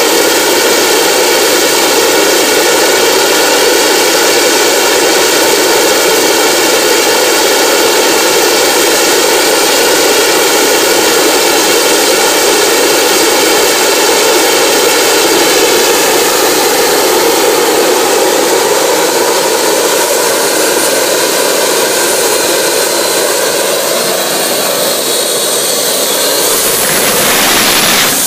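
Homemade turbocharger jet engine running steadily and loud: a dense rushing roar with a high turbine whine on top. The whine rises slightly near the end.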